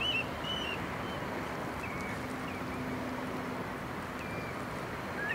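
Steady outdoor rushing ambience on a seafront, with a few short, wavering whistled bird calls over it.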